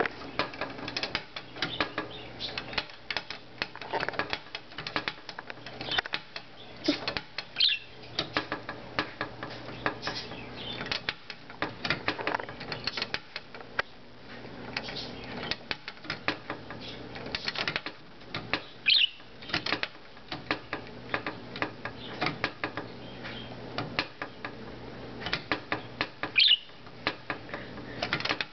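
A pet bird's beak pecking and biting at a door knob: rapid, irregular clicks and taps. Three short high chirps stand out over the tapping, well spread out.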